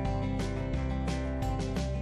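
Instrumental background music with guitar and a bass line.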